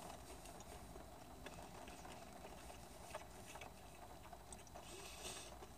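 Near silence: room tone with a few faint clicks and a brief soft rustle about five seconds in.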